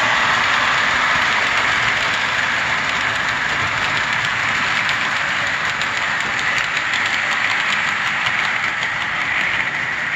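O scale model freight train rolling past on metal track: a steady whirring rumble of wheels and mechanism with faint clicks at the rail joints, easing slightly near the end as the last cars go by.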